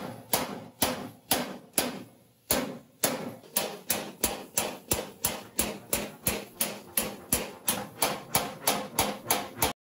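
Hammer blows on a hand chisel in a steady rhythm, about two to three a second, with a short pause about two seconds in: the chisel being tapped along to cut a continuous line into sheet metal. The blows stop suddenly near the end.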